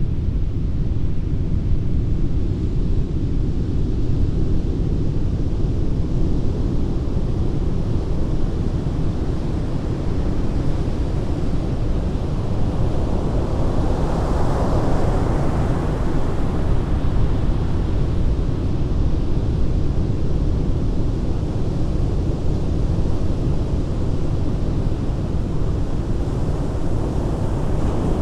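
Ocean surf: a steady, deep rumble of waves, with one wave breaking into a brighter hiss that swells and fades about halfway through.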